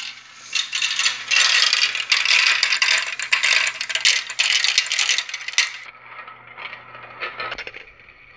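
Marbles rattling and clicking down a plastic marble run track, a dense clatter for about five seconds that thins to scattered clicks near the end.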